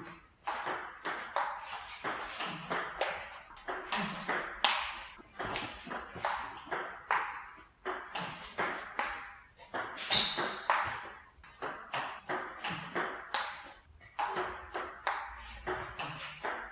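Table tennis rally: a celluloid ping-pong ball struck by paddles and bouncing on the table in quick sharp clicks, about two to three a second, with brief lulls between rallies.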